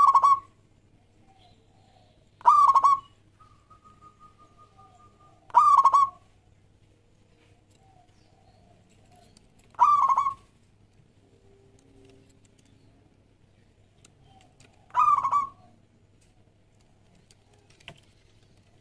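Zebra dove (perkutut) cooing: five short, loud coos spaced a few seconds apart.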